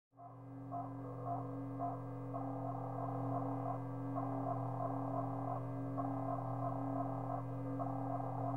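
Electronic synthesizer soundtrack starting abruptly out of silence: a steady low drone under a repeating pattern of short, sci-fi-style bleeps.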